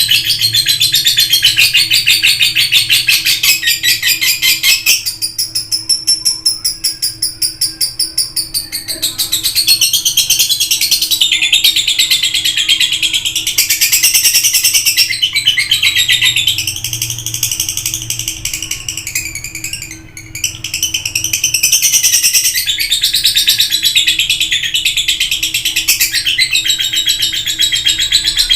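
Lovebird chattering non-stop in long, rapid, high-pitched trilling runs, with a brief lull about twenty seconds in.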